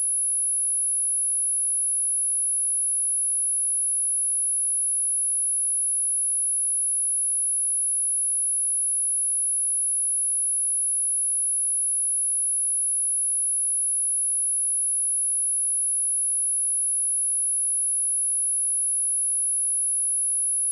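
A pure 10557 Hz sine-wave test tone held steady at one high pitch, with no change in level.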